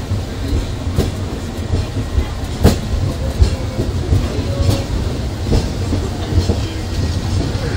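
The Peak Tram, a cable-hauled funicular car, running downhill on its rails, heard from inside the car: a steady low rumble broken by several sharp clicks and knocks.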